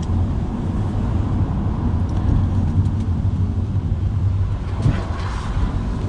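A car's engine and tyre noise heard from inside the cabin while driving slowly, a steady low hum.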